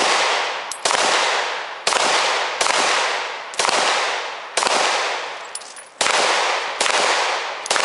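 Glock pistol fired in a steady string of about nine shots, roughly one a second, each shot echoing away before the next.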